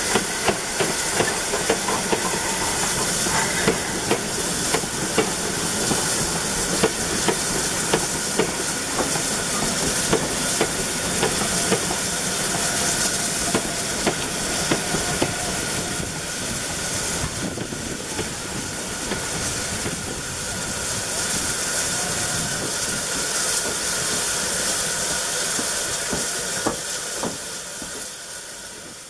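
Steam tank locomotive and its coaches passing, with a loud steady hiss of steam and wheels clicking over the rail joints, the noise fading near the end.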